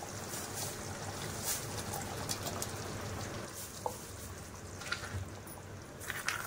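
Thick curry gravy simmering softly in a kadhai, a steady fine bubbling, with a few small clicks and plops as paneer cubes slide in from a steel plate and a silicone spatula moves them.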